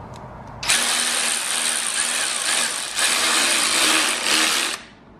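Cordless power tool spinning a socket on a long extension to back out an engine bolt, running for about four seconds with a brief break midway, then stopping suddenly.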